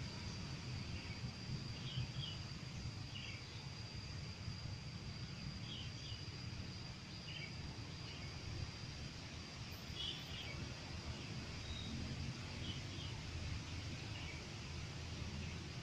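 Outdoor ambience: a steady low rumble and a thin steady high whine, with short bird chirps scattered throughout.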